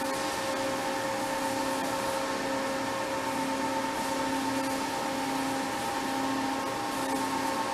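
Automatic tool changer of a large gantry machining centre running through a vertical tool change: a steady machine hum of several tones over a hiss, with a low tone pulsing on and off.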